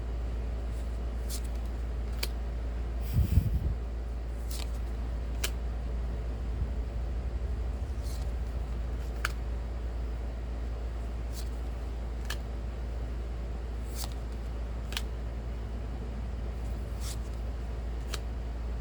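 Trading cards being handled and flipped through one at a time: light sharp clicks every second or so, with a louder handling bump about three seconds in, over a steady low hum.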